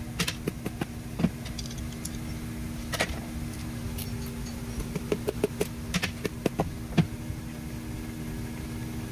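Light metallic clicks and taps of hand tools and parts on a cast iron small block Ford engine block during short-block assembly, over a steady low hum. The clicks come in clusters near the start, about three seconds in, and between five and seven seconds in.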